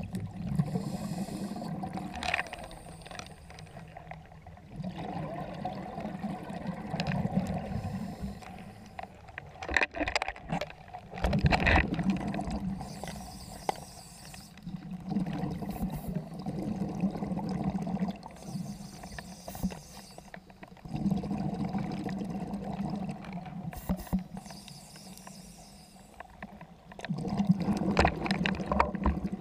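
Open-circuit scuba breathing heard underwater: a gurgling rush of exhaled bubbles from the regulator about every five to six seconds, with quieter gaps between breaths.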